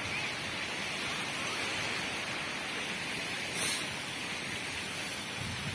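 Steady rushing noise of sea surf and wind at a beach, with a brief sharper hiss about three and a half seconds in.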